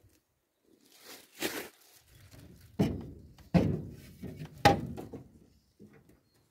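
A wall-mounted mailbox being opened and handled: a rustle, then three thunks about a second apart.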